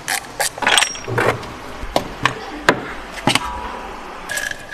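Hand tools and loose metal engine parts clicking and clanking in a run of separate sharp knocks, with a brief metallic ring near the end, as the timing cover and surrounding parts of a 1.8 timing-chain engine are taken off.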